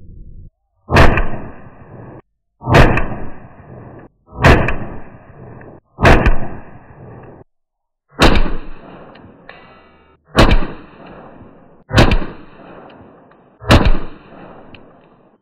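Eight .22 LR shots from a Ruger pistol, one every one and a half to two seconds. Each is a sharp crack followed by a short ringing tail.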